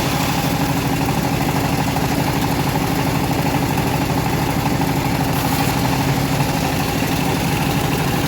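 Engine of a homemade bandsaw mill running steadily at an even speed.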